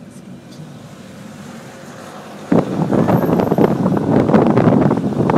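A low car-cabin rumble while driving slowly, then about halfway through a sudden loud rush of wind buffeting the microphone at the car's open window, fluttering and gusty.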